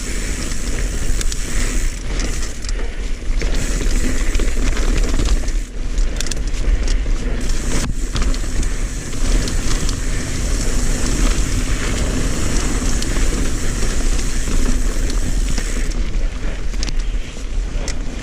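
Mountain bike riding along a dirt trail: wind rumbling on the microphone and tyres rolling over the trail, with many scattered clicks and rattles from the bike.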